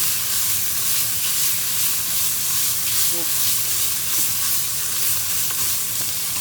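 Thai curry paste sizzling in hot oil in a pan as it is stir-fried, a steady high hiss: the paste is being fried until its oil separates out.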